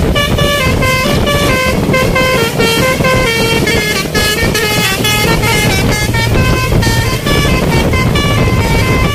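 Bus telolet basuri horn playing a long run of quick stepped notes, several a second, over a steady low rumble.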